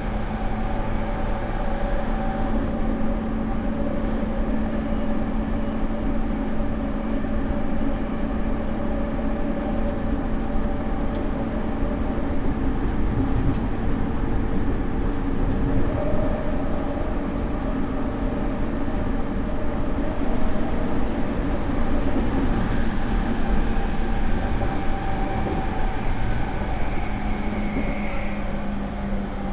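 Running sound heard inside a JR E231-500 series electric motor car: steady wheel-and-rail rumble under the whine of its traction motors and Mitsubishi IGBT VVVF inverter, whose tones shift a little near the end. The motor noise is loud and, in the uploader's view, slightly off-sounding, a car whose traction equipment has been replaced.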